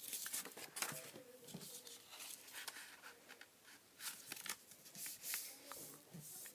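A sheet of paper being handled and folded, with irregular rustles and creasing strokes.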